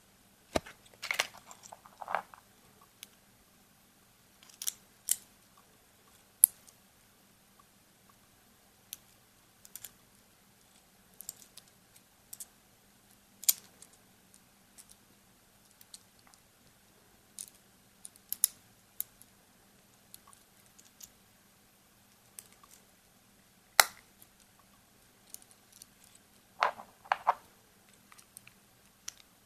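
Small hard-plastic toy parts being handled and pressed together. Scattered sharp clicks and taps come every second or two, with a few short bursts of rattling clicks near the start and near the end.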